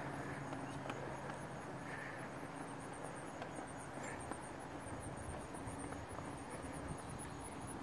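Insects chirping in a steady, rapid, high-pitched pulse, over a faint low hum.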